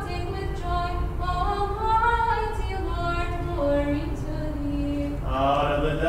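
Unaccompanied Orthodox liturgical chant sung by a female voice, a slow melody of held notes that glide from pitch to pitch. Near the end the singing grows louder and fuller as another voice comes in.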